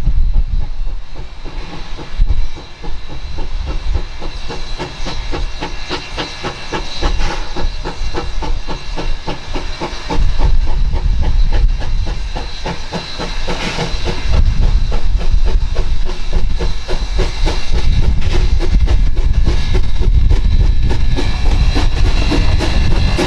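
Former Alaska Railroad No. 152, a narrow gauge steam locomotive, working slowly around a turning loop with its passenger train. Steam hisses over a quick, continuous run of clicks from the wheels, and the sound grows louder about ten seconds in.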